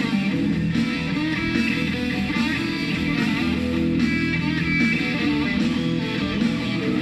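Live rock band playing: electric guitar over bass guitar and drums, with a steady beat.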